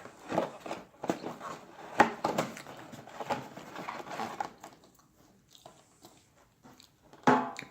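Close-up chewing and wet mouth smacks of someone eating, irregular for the first few seconds and then dying away. A short, loud vocal sound comes near the end.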